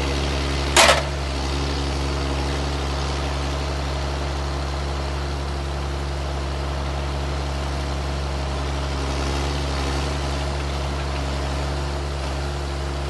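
Diesel engine of a 2003 Timberjack 1410D forestry forwarder running steadily while its hydraulic crane boom is moved. A short, loud burst of noise cuts in about a second in.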